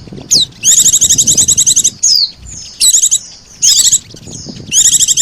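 Bird-lure recording of white-eye (pleci) and sogon calls: four loud, fast, high-pitched chattering trills of up to about a second each, with short falling whistles between them.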